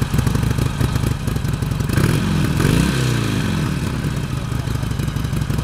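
A 2010 Harley-Davidson Iron 883's air-cooled V-twin on its stock exhaust, idling moments after starting. It is revved once about two seconds in, its pitch rising and then falling back to idle.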